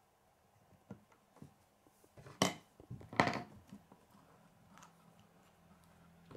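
Plastic K'nex pieces clicking and knocking as they are handled and fitted together, with two loud sharp clicks a little under a second apart near the middle and a few softer taps around them.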